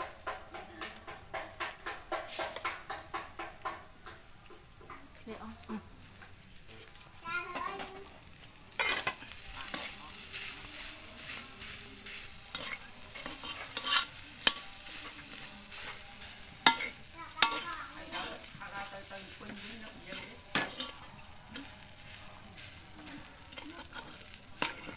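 Fried rice being stirred and tossed in a hot wok with a metal spatula: metal scraping across the pan over frying sizzle. Quick, regular scraping strokes in the first few seconds give way after about nine seconds to a steady sizzle, with a sharp scrape now and then.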